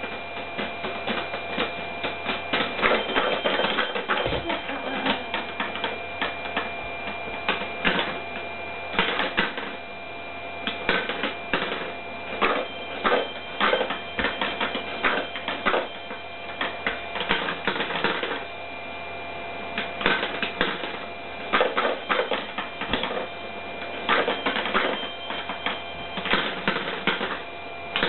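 Kumon Kuru Kuru Chime toy: balls clattering down its spiral ramps and striking the chime bells, an irregular run of clicks and rattles over steady ringing tones.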